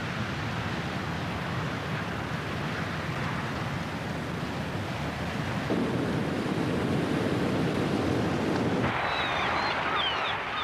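Steady rushing wash of surf along a coast, its tone shifting twice as the shot changes. Honking bird calls begin faintly near the end.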